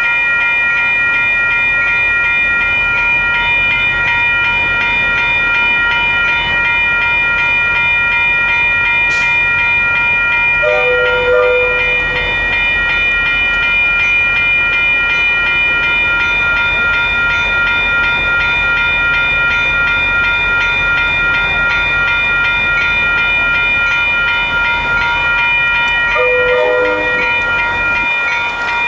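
Railroad crossing bell ringing continuously over the low rumble of a train passing slowly. Two short, lower-pitched tones sound about 11 seconds in and again near the end.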